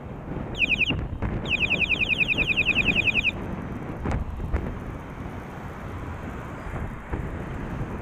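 A rapid string of short falling electronic chirps, about nine a second, like an alarm or electronic horn: a brief burst, then about two seconds more. Wind rushing on the microphone and road noise from riding run underneath.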